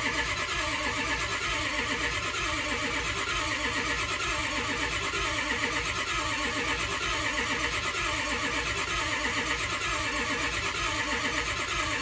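Starter cranking a 2005 Ford 6.0L Power Stroke V8 diesel, a steady rhythmic churn that never catches. No injection control pressure builds (0 ICP), which the owner puts down to the high-pressure oil system still filling after the truck sat without oil pressure.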